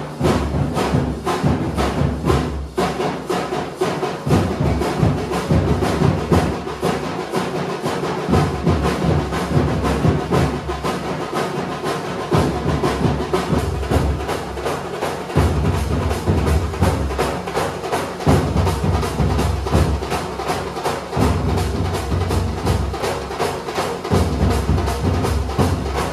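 A group of chenda drums beaten fast with sticks: a dense, rapid, unbroken run of strokes, with deeper bass beats coming in and dropping out in stretches.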